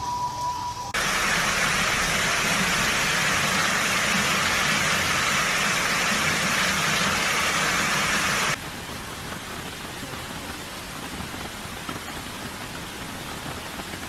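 Floodwater rushing: a loud, steady hiss of water pouring down a flight of stone steps. After about eight seconds it cuts to a quieter, steady rush of water flowing over flooded ground. A two-tone siren sounds briefly at the very start.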